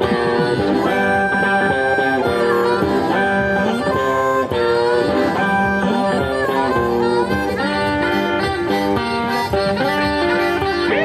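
Live blues band playing: a harmonica cupped against a vocal microphone plays sustained, bending notes over electric guitar.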